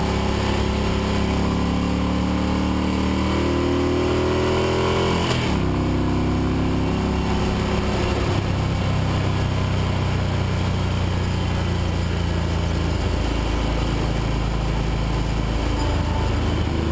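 Motorcycle engine heard from onboard the bike, rising in pitch for about five seconds as it accelerates, dropping suddenly at a gear change, then running steadily at cruising speed.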